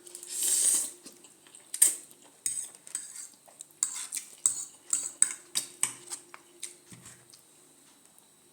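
A short hiss, then cutlery clinking and scraping against dishes in a run of quick, uneven taps.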